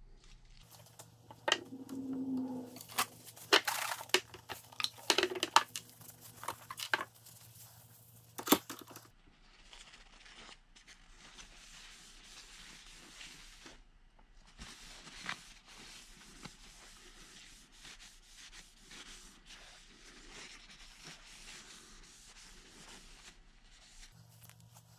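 Sharp clicks and knocks of handling in the first several seconds, the loudest a single knock about eight and a half seconds in. Then a folded paper towel rubs and crinkles steadily against the knife's wooden handle, wiping on a Danish oil finish.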